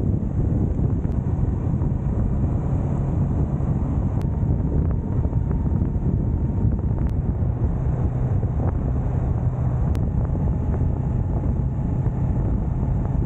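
Wind rushing over the camera's microphone at motorway speed, with a Honda Rebel 500 motorcycle's parallel-twin engine running steadily underneath.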